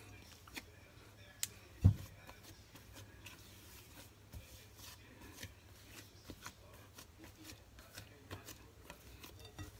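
Rubber spatula scraping and tapping against a glass mixing bowl as thick cookie dough is stirred and folded, in short irregular strokes. A single dull thump about two seconds in is the loudest sound.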